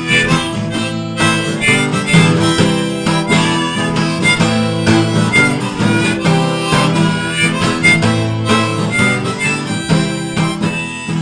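Background music: an instrumental passage with harmonica over guitar.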